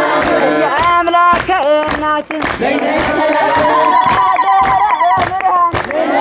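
A crowd of Ethiopian Orthodox worshippers, mostly women, singing a religious chant together in call and response, with steady rhythmic hand clapping.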